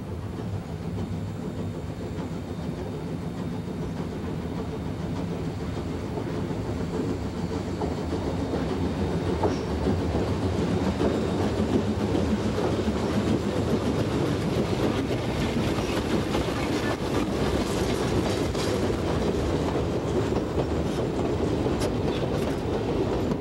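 Steam excursion train running on the rails, a steady rumble that grows louder over the first half, with a run of sharp clicks near the end.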